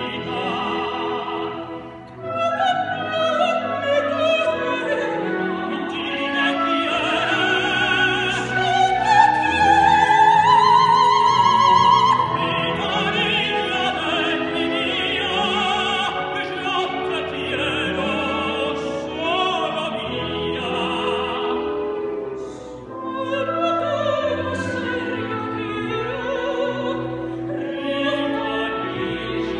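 Soprano and tenor singing an operatic duet with orchestra, the voices wavering with wide vibrato; a long, loud high note rises from about seven to twelve seconds in, and the music briefly drops away about two and twenty-three seconds in.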